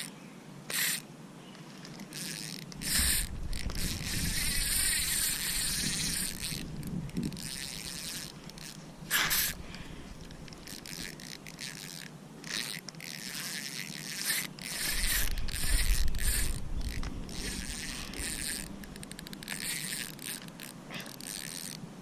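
Fishing reel being cranked, its gears and pawl clicking, with spells of low rumble.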